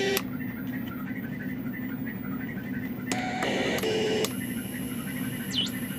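Homemade synthesizer making electronic tones and bleeps as its switches and knobs are worked. A quieter stretch with a fast pulsing patter over a steady hum gives way, about three seconds in, to around a second of louder steady tones. Then comes a thin high whine that swoops down and back up near the end.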